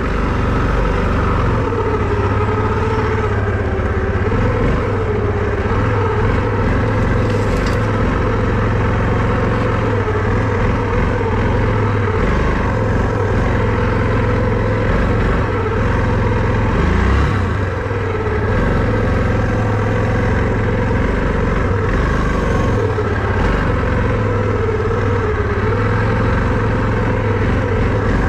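All-terrain vehicle engine running continuously while riding, its pitch wavering gently up and down with the throttle.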